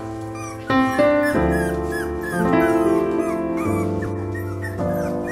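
Piano music playing, with young puppies whimpering and yipping over it in short, high squeaks.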